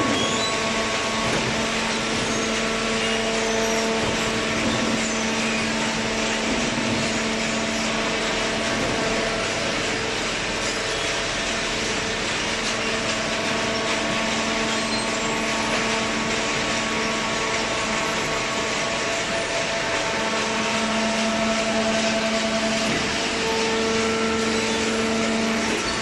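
Hydraulic waste-paper baler running: a steady machine drone with a constant hum and its overtones, the hum swelling a little at times.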